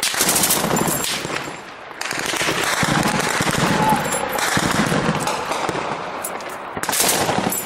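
Rapid automatic gunfire from machine guns and rifles in a sustained firefight, a dense clatter of shots that is heaviest near the start and again near the end.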